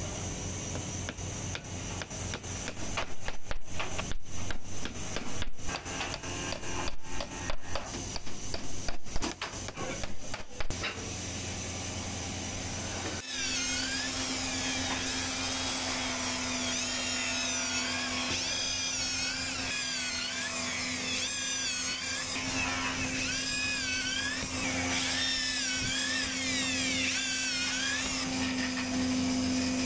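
Hammer tapping a nail into a wooden board: a run of sharp, irregular knocks. About thirteen seconds in, an electric hand drill starts suddenly and runs steadily, boring holes through the board, with a high whine that wavers up and down as the bit cuts.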